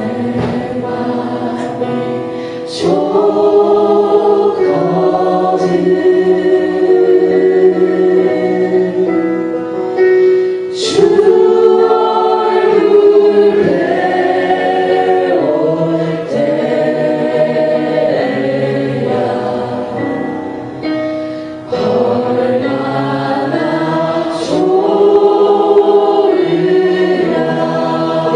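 Worship singing: many voices singing a slow Christian worship song together in long, held phrases, swelling again after a brief dip near the end.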